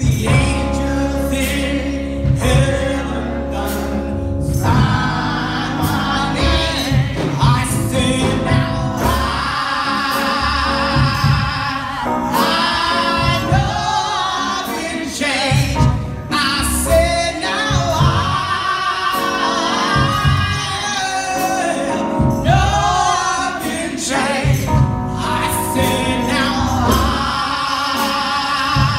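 A woman singing a gospel song into a handheld microphone, amplified, over music with a steady beat.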